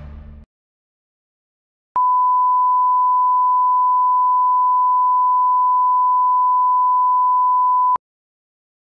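A steady 1 kHz line-up tone, the reference tone laid down with colour bars for setting audio levels, sounding for about six seconds and cutting in and out abruptly. Before it, the commercial's music stops about half a second in, followed by a short silence.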